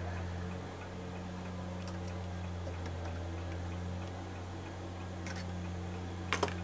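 Steady low electric motor hum from the workshop machinery, with a faint regular ticking over it. A few sharp metallic clicks come near the end.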